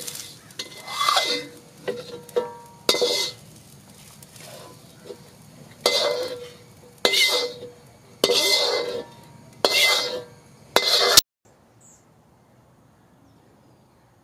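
Metal ladle scraping and scooping fried rice out of a wok, a series of scrapes about a second apart with the metal ringing on each stroke; it cuts off abruptly about eleven seconds in.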